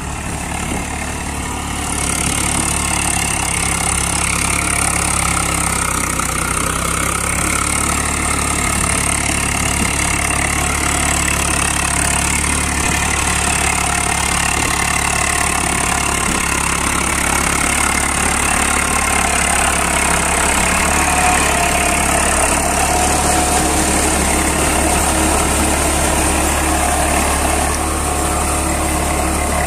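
Eicher 380 tractor's diesel engine running steadily under load as it drives a rotavator through flooded paddy mud. It gets louder, with more hiss, from about two seconds in.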